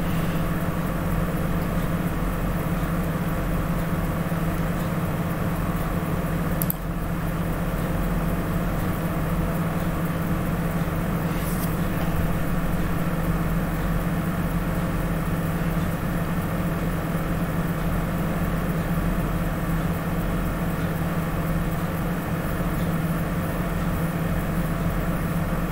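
Tofaş Şahin car engine idling steadily with the alternator just refitted and its belt back on, with a couple of light clicks partway through.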